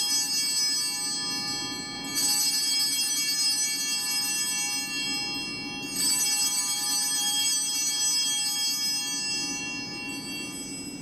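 Altar bells rung at the elevation of the host: a cluster of small bells rings out, struck again about 2 seconds in and again about 6 seconds in, each ring fading away slowly.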